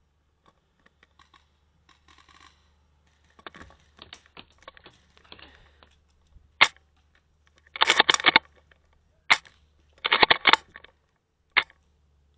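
Airsoft gunfire: faint scattered clicks, then three single sharp shots and two short, rapid bursts of rattling clicks in the second half.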